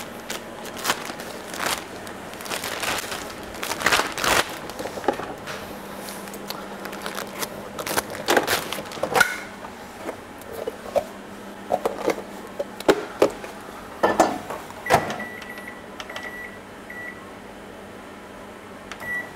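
Knocks and clicks of kitchen handling, then a microwave oven beeping: several short high beeps at one pitch from about fifteen seconds in, just as a faint low hum stops.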